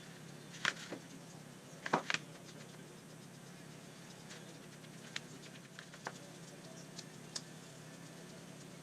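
Scattered light knocks and clicks of a small wooden band saw box and its drawer being handled, the loudest pair about two seconds in, then a few fainter taps.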